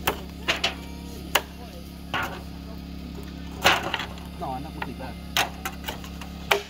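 Meat cleaver chopping through grilled squirrel on a wooden cutting board: about a dozen sharp, irregularly spaced chops, the loudest a little over halfway through.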